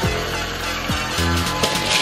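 Upbeat background music with a bass-drum beat.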